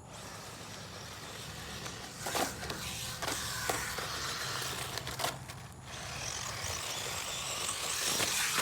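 A small electric RC short-course truck, a Traxxas 1/16 Slash, is being driven over rough dirt and gravel. There is a continuous rough crunching hiss, with several sharp knocks and clatters in the middle as it bounces over debris.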